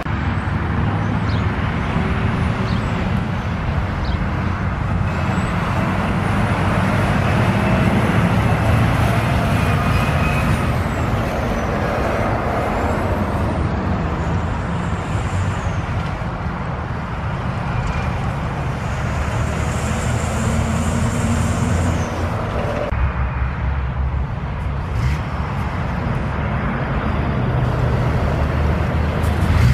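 Diesel trucks towing trailers driving past on a road, the low engine note and tyre noise rising and fading as each one goes by, with a car passing as well.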